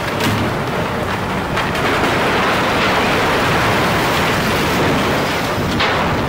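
A building section collapsing as an excavator pulls it down: a long crash of breaking masonry and falling debris. It swells from about one and a half seconds in and is loudest in the middle, with sharp cracks near the start and just before the end.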